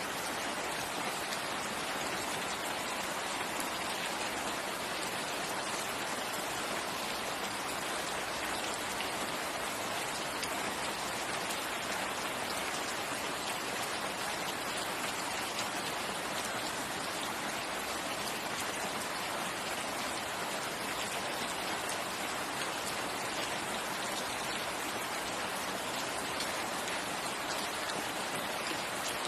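Steady rain falling, a dense even patter of drops with no pauses or changes.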